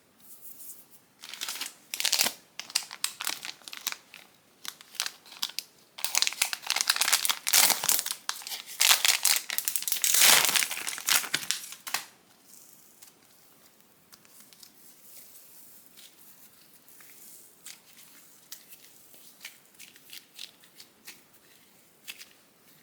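Crinkling and tearing of handled crafting material, dense and crackly, loudest from about six to twelve seconds in, then dropping to faint scattered clicks and rustles.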